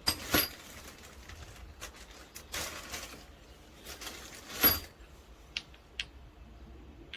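Handling noise: a few sharp clicks and knocks of hard objects being picked up and set down, with two brief rustling swishes, the loudest knock about two-thirds of the way through.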